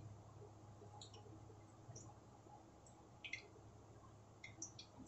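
Near silence: a faint steady low hum with a few faint, scattered clicks.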